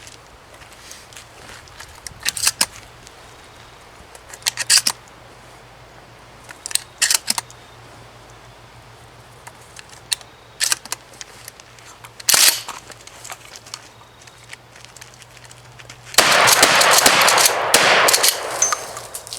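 Remington 870 12-gauge pump shotgun being fired: short clusters of sharp cracks and clacks every couple of seconds, then a dense, loud stretch of about two and a half seconds near the end.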